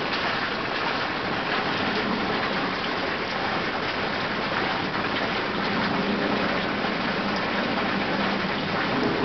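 Steady noise of falling water, like rain, with a faint low hum joining about halfway through.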